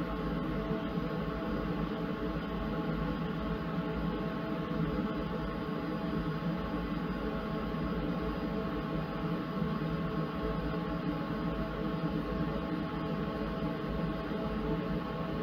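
xTool D1 Pro diode laser engraver running while it engraves wood: the laser module's cooling fan and the gantry's stepper motors give a steady hum with several constant tones and an even hiss.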